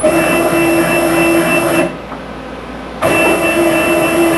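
Stepper motors of a DIY CNC router driving the lead screws as the machine jogs at about 50 inches per minute, a steady whine of fixed pitch. It runs for about two seconds, stops for about a second, then starts again.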